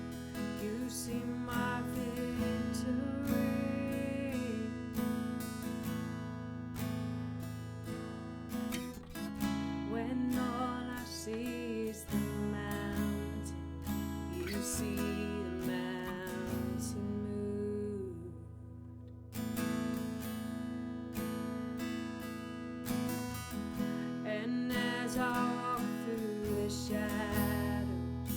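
Music led by a strummed acoustic guitar playing steady chords over sustained low notes, easing off briefly a little past halfway before picking up again.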